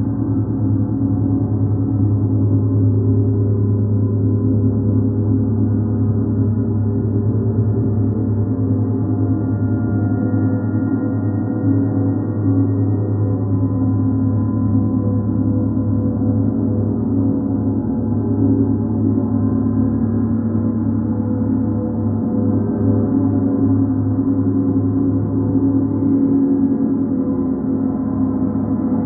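Large hanging planetary gongs played continuously with soft felt-headed mallets, building a steady, unbroken wash of many overlapping tones, deepest and strongest in the low range.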